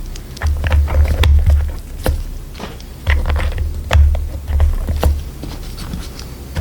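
Typing on a mechanical keyboard: irregular, quick keystroke clicks, several a second, over background music with a pulsing bass beat.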